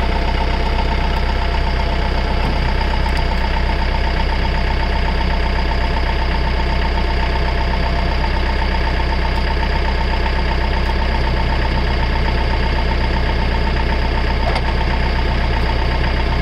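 RK55 tractor's diesel engine idling steadily.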